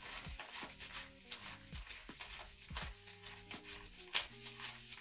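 Euro banknotes counted by hand, each €5 note flicked off the stack with a quick, crisp papery rustle, many in a row. Soft background music plays underneath.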